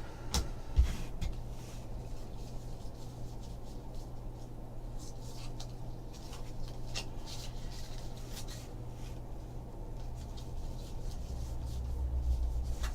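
Trading cards being handled and rubbed together in faint, scattered rustles, over a steady low hum.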